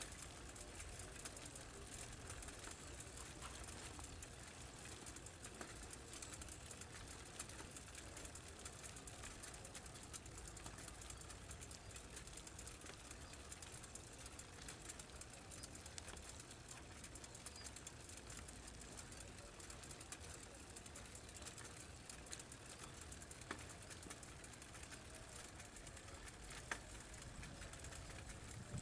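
Faint, steady outdoor ambience of a village after rain, with distant bird calls and a few small ticks.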